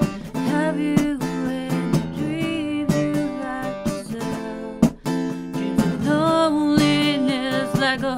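A woman singing a song, accompanied by a strummed acoustic guitar.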